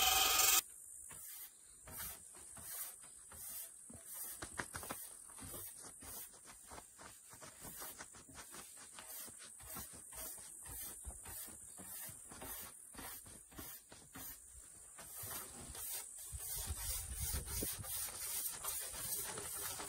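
Hand sanding bare wood with a sanding sponge: many short rubbing strokes across the grain of a slab tabletop, a little louder near the end. In the first half-second, a louder pitched sound cuts off abruptly.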